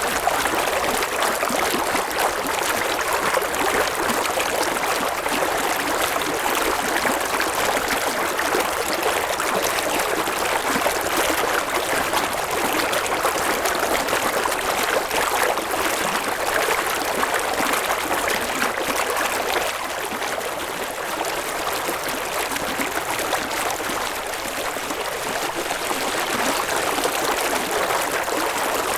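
River water flowing over rocks, a steady rushing and babbling.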